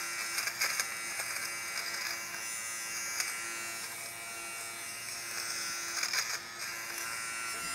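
Battery-powered Philips GC026/80 fabric shaver (pill remover) running with a steady buzz as it is moved over a hat, its blades cutting off the pills, with a few short clicks along the way.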